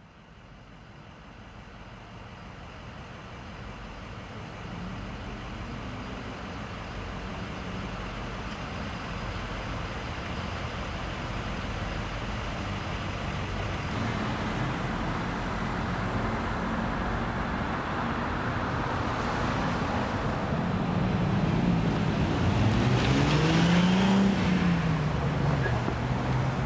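Road traffic noise fading in and growing steadily louder, with one vehicle's engine rising and then falling in pitch near the end as it passes.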